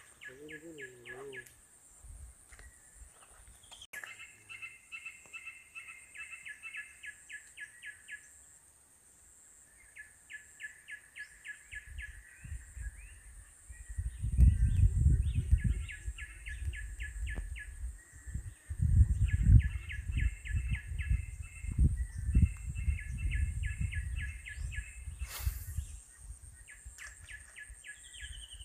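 A bird's repeated chirping, fast trains of about eight to ten even notes a second, in runs of a few seconds with short gaps. From about halfway through, for some twelve seconds, loud low rumbling and bumping noise from handling close to the microphone drowns it out at times.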